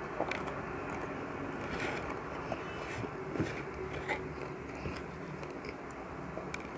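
Chewing fried dried anchovies (dilis) eaten by hand, with scattered small crunchy clicks and crackles.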